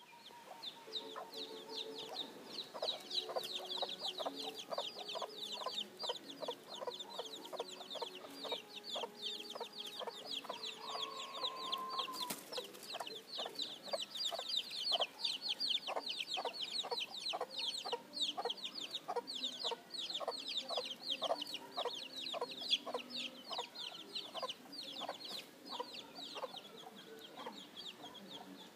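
Chickens clucking repeatedly, under a dense, fast, high-pitched chirping.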